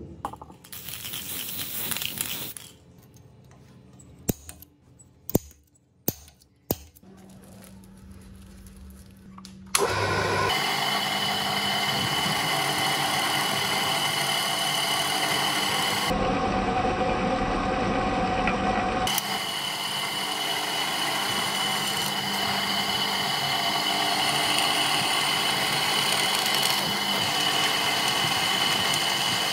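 A drill press running a twist bit through a forged steel disc, cutting steadily with a constant high motor whine as the bit chews out curled steel swarf; the drilling starts about a third of the way in. Before it, a brief rustle and a few sharp clicks.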